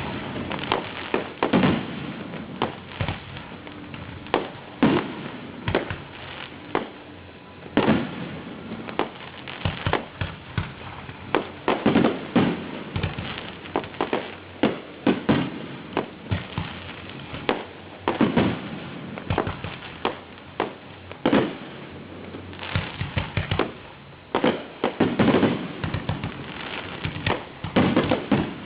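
Fireworks display: shells bursting in an irregular series of sharp bangs and cracks, some single and some in quick clusters of several.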